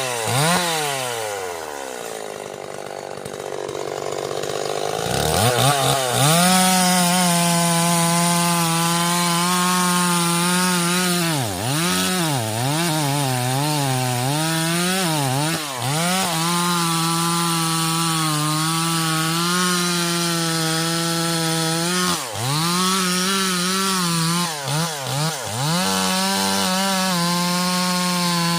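Stihl MS 381 two-stroke chainsaw. Its revs drop to a low idle at the start, then about five seconds in it revs up to full throttle and runs steadily cutting wood, with brief dips in engine speed around the middle and again near the end.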